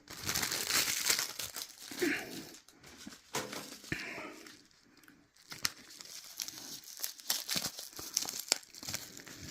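Plastic packaging being crinkled and torn by hand: an irregular rustle of crackles and sharp snaps as the bags of fishing tackle are handled and opened.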